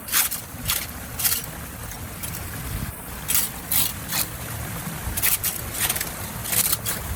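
Water rushing and splashing at a clogged drain or dam, with short, sharp splashes repeating at irregular intervals over a steady low rush.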